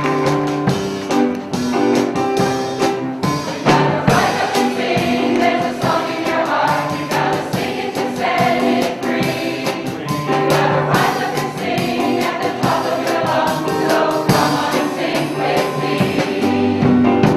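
Mixed community choir of men and women singing with instrumental accompaniment.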